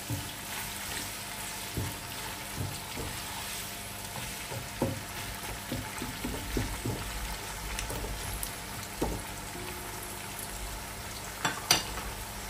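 Sliced onions frying in hot oil with a steady sizzle as they are browned. A spoon stirs them, knocking and scraping against the pot every second or two, with a sharper clatter near the end.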